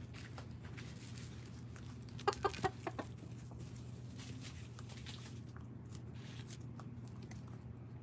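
Hens clucking: a quick run of about five short clucks a couple of seconds in, over a steady low hum.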